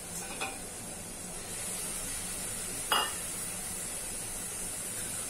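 Steady sizzle of peas and mushrooms frying in oil and spice masala in an open pressure cooker pot. A metal ladle knocks against the pot once sharply about three seconds in, with a lighter tap near the start.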